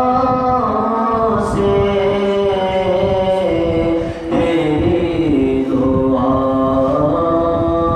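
A cappella nasheed sung by a male voice, holding long, drawn-out notes that step up and down in pitch without instruments, with a short breath-like dip about four seconds in.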